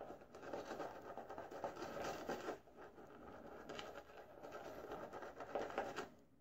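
Boar-bristle shaving brush scrubbing lather over a stubbly neck and cheek: a close, wet scratchy rustle with a short break about two and a half seconds in, stopping just before the end.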